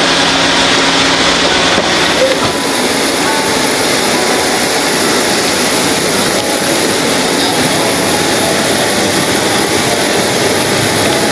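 Jet aircraft engine running: a steady loud roar with a constant high whine. It begins about two seconds in, replacing a lower steady hum.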